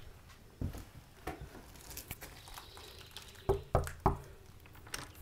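Three quick knocks of knuckles on a wooden cabin door, about three and a half seconds in, after a faint bump.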